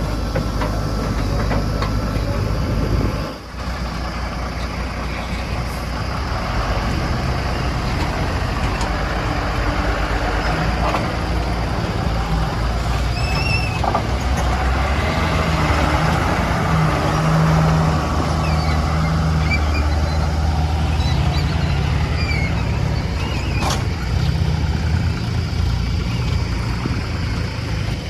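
Heavy diesel engine of a working construction vehicle running steadily, its pitch shifting a little as the load changes, with a brief drop in level a few seconds in.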